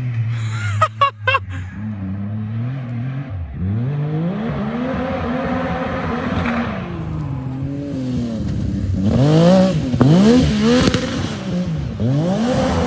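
A vehicle engine revving over and over, its pitch climbing and dropping with each rev, with a few sharp pops about a second in; the revs come faster and higher near the end.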